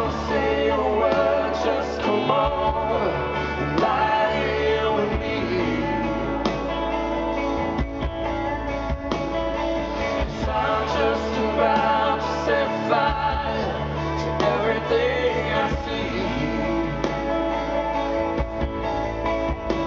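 Live band music: electric guitar over bass and a steady band, with a male lead voice singing into the microphone.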